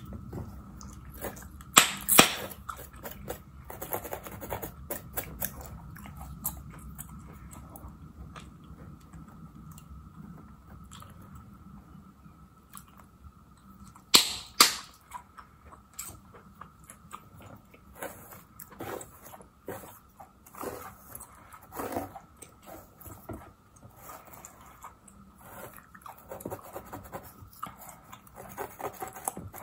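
Gum chewing and smacking close to the microphone, over the light scratching of a fine-tooth comb and fingertips on a mannequin's scalp and hair. There are two loud sharp double clicks, one about two seconds in and one about fourteen seconds in.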